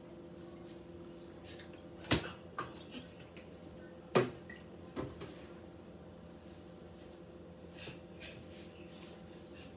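A few sharp knocks and clatters of things being handled at a kitchen counter, the loudest about two and four seconds in, over a steady low hum.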